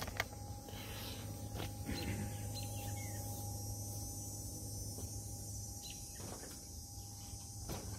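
Quiet yard ambience with a steady low hum and a brief bird chirp about three seconds in. A few soft knocks come near the end as someone climbs onto a riding lawn tractor.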